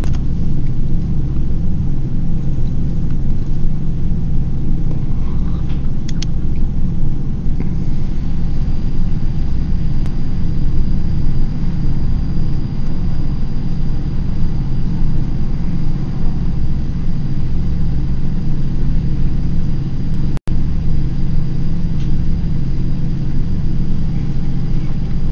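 A steady, loud low hum with no speech, joined by a faint high whine about eight seconds in; the sound cuts out for an instant about twenty seconds in.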